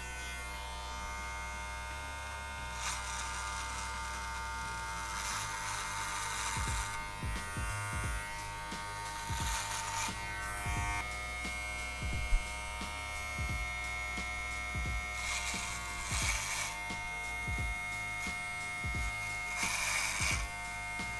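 Brio Beardscape electric beard trimmer running steadily with the blade at zero length, a constant motor whine. Several times it gives louder hissing bursts as the blade cuts through sideburn hair.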